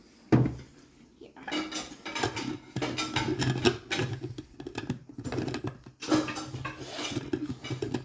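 A sharp knock on the counter, then irregular plastic clicking and scraping as a lid is twisted onto a personal blender cup.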